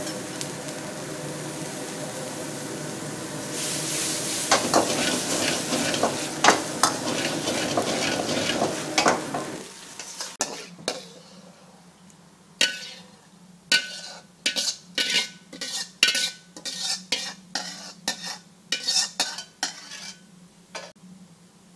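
Brussels sprouts sizzling in a wok while a metal ladle stirs and scrapes them. About ten seconds in the sizzling drops away, and a run of short, sharp scrapes and clinks of the ladle against the wok follows as the food is ladled out.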